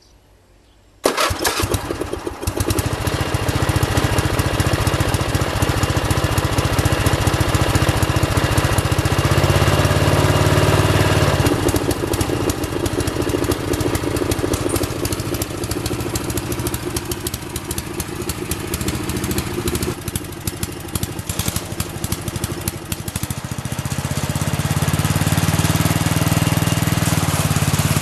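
Small lawnmower engine on a homemade chain-driven mower, starting abruptly about a second in and running for the rest, its level rising and falling with load as it mows.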